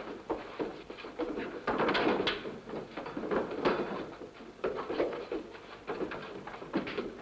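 Two men fistfighting: a run of irregular thumps and scuffling as punches land and bodies bump into furniture, loudest about two seconds in, over the hiss of an old film soundtrack.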